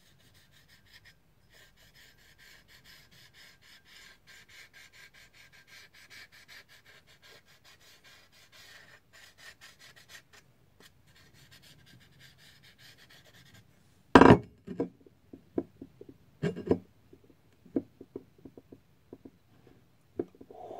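Felt-tip marker scrubbed quickly back and forth over a steel knife blank, colouring it in, several strokes a second. Near the end come a few sharp knocks of the steel blade and tools set down on the workbench, the loudest two about two seconds apart.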